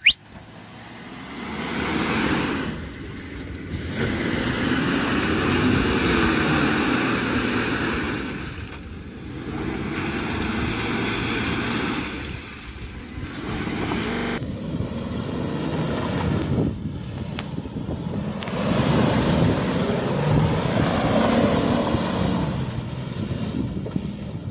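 Suzuki Grand Vitara 4x4's engine revving up and down as the SUV ploughs through mud and standing water, its tyres throwing up muddy water.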